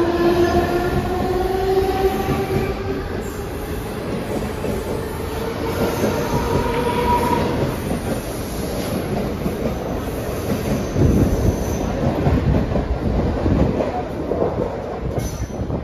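Mumbai suburban EMU local train pulling out of the platform, its traction motors whining with a pitch that rises over the first several seconds. The wheels then rumble and clatter over the rail joints as the coaches run past, loudest around two-thirds of the way through.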